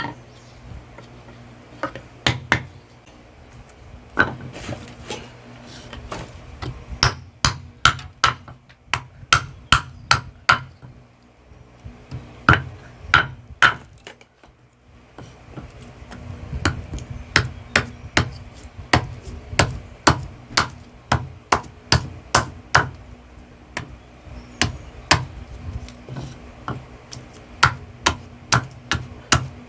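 Hammer blows on metal at a blacksmith's anvil, coming about two a second in runs with short pauses, each strike ringing briefly. A faint steady hum lies under the strikes.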